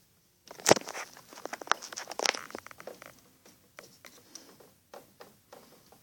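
Slider turtles splashing and thrashing at the water surface of an aquarium while snatching at food: a burst of splashes and sharp clicks with a loud knock about a second in, thinning to scattered clicks.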